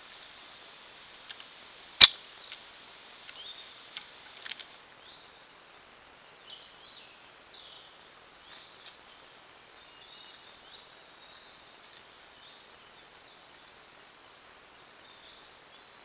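A single sharp click about two seconds in, followed by a few softer taps, then faint, short, high bird chirps over a steady hiss.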